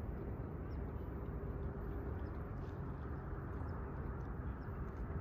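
Steady low outdoor rumble with a faint steady hum, and a few faint, short high chirps scattered through it.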